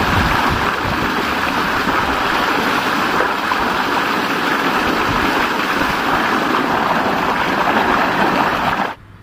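Water gushing from a tubewell pump's outlet pipe and splashing steadily into a stone water channel over a person bathing under the jet. The sound cuts off suddenly near the end.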